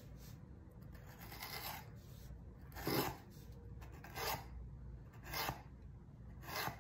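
Needle-tip fine-liner applicator scratching across a painted board as lines of acrylic are drawn: about five short scratchy strokes a little over a second apart, the one about three seconds in the loudest.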